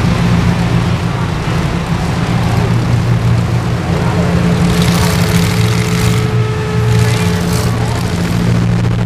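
Demolition derby cars' engines running loudly and steadily, with a few sharp hits about five to seven and a half seconds in.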